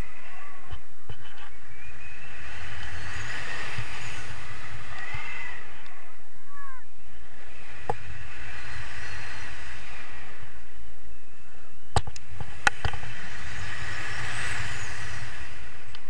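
Wind rushing and buffeting over the camera microphone during a tandem paraglider flight, a steady rumbling hiss with a few faint whistling glides. Two sharp clicks come about three quarters of the way through.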